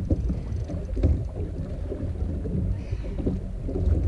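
Wind rumbling on the microphone, with water lapping and knocking against the hull of a small fishing boat.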